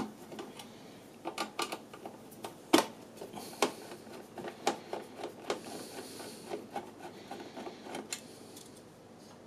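Screwdriver turning out a small screw from a monitor's sheet-metal power-supply cover: irregular light clicks and scraping, with one sharper click a little under three seconds in.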